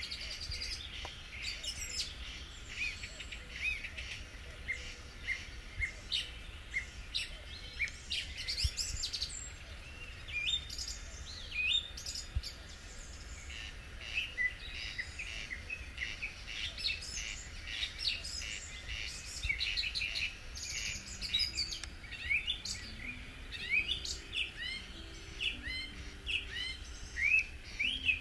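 Wild birds singing and calling in a dense chorus of many short, quick chirps and trills, with faint short low notes near the end.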